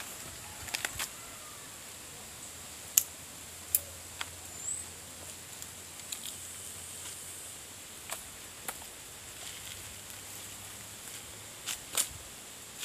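Scattered sharp clicks and snaps, a dozen or so at uneven intervals, the loudest about three seconds in and near the end, over a faint steady high-pitched tone.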